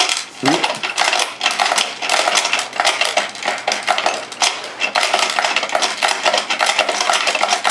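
Hungry Hippos plastic board game in play: hippo levers pressed over and over, giving a fast, continuous plastic clacking and clattering as the jaws snap and the balls rattle on the board.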